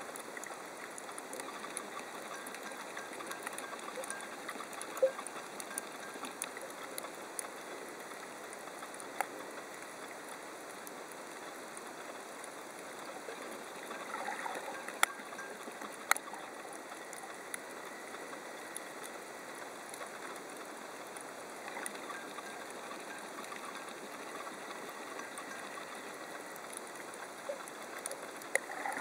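Underwater reef ambience heard through a camera's housing: a steady hiss dotted with scattered sharp clicks and crackles, with a couple of brief swells of noise.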